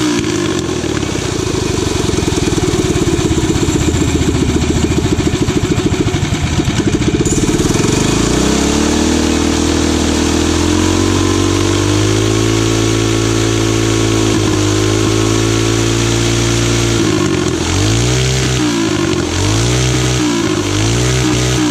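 Tillotson 212cc single-cylinder engine with a Tillotson TCT carburetor and no governor, running during carburetor tuning. It runs at high revs for the first several seconds and drops to a lower, steady speed about seven seconds in. Near the end its speed rises and falls over and over, about once a second.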